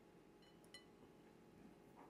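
Near silence: faint room tone, with a couple of faint light clicks with a short ring just under a second in.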